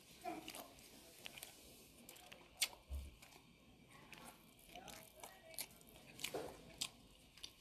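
Faint, scattered clicks and taps of wooden chopsticks against a barbecue hotplate while grilled steak and onion rings are picked up, with the sharpest tap about two and a half seconds in. A few faint voice fragments in the background.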